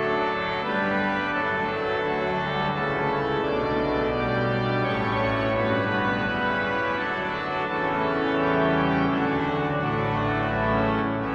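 Viscount Canticus 50 digital church organ playing full, held chords over a low pedal bass line, the harmony changing every second or two.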